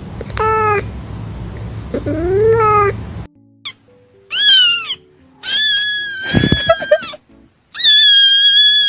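Cat meows from meme sound clips: two short meows over a hissy background, then a cut to three high-pitched kitten cries, the last two long and drawn out.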